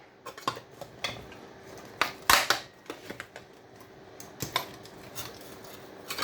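Irregular metallic clicks, scrapes and knocks of a hand tool prying components off a scrap power-supply circuit board. The sharpest clack comes about two seconds in.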